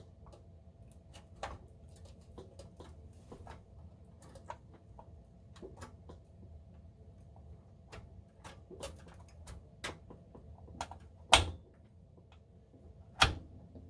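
Scattered light clicks and taps of a graphics card being handled and worked into a PC tower's expansion slot, with two loud sharp knocks near the end as the card strikes against the case.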